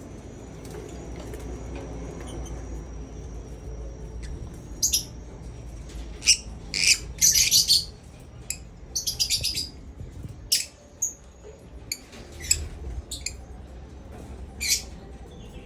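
Lovebirds giving short, sharp chirps and squawks, scattered irregularly and bunched in quick clusters through the middle and later part.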